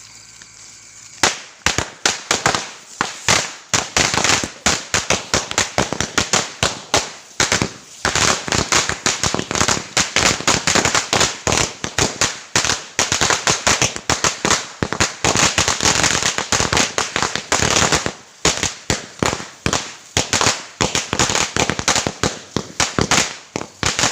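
A long string of firecrackers, a 1000-shot ladi, going off in rapid, irregular bangs several a second. It starts about a second in and keeps crackling, with a couple of brief lulls.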